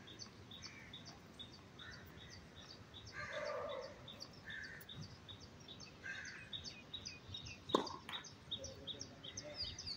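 A bird calling over and over in short, evenly spaced chirps, about three a second, with one sharp knock about three-quarters of the way through.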